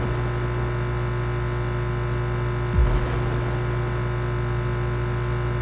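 Sleeping hummingbird snoring: a thin, high whistle that slides slightly downward, about a second and a half long, heard twice, with a brief low thump as the first whistle ends. Under it runs a steady electrical hum from the camera's microphone sensitivity turned up.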